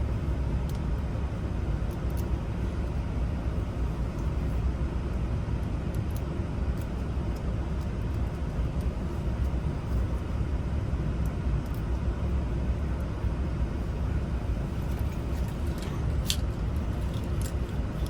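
Steady low rumble of an idling vehicle engine. A few small clicks near the end come from the parts of an ignition lock cylinder being handled.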